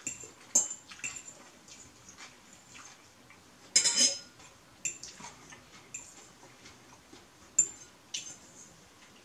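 Fork clinking and scraping against a bowl of noodles during eating, in scattered sharp clicks. About four seconds in there is one louder, brief rough noise.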